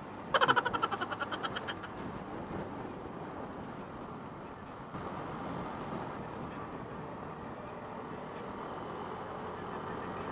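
Motorcycle engine and wind noise heard on board while riding, steady throughout. About half a second in, a brief loud rapid pulsing sound lasts a little over a second.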